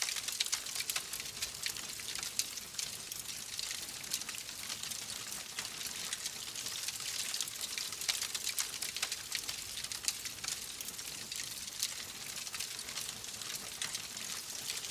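Wood fire crackling steadily in a fireplace, a continuous hiss with many small, sharp pops and snaps.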